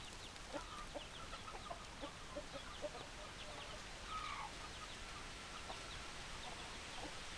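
Chickens clucking: a flock of hens giving many short, scattered clucks and chirps, with one slightly longer call about four seconds in.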